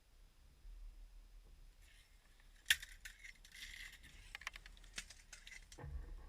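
Faint scattered clicks and light rattling, with one sharper click about three seconds in and a low thump near the end.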